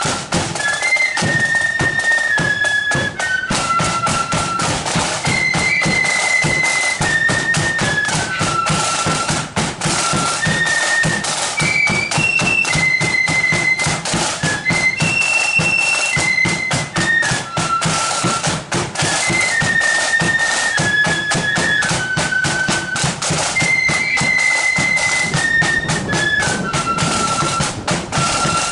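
Marching flute band playing a tune: massed flutes carry one high melody in unison over rapid snare-drum rolls and bass-drum beats.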